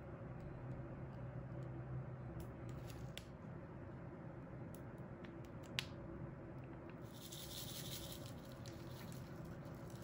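Faint handling sounds of a clear plastic piping bag and gloved hands, light crinkles and scattered ticks with one sharp tick about six seconds in, over a steady low room hum; a brighter hiss comes in about seven seconds in.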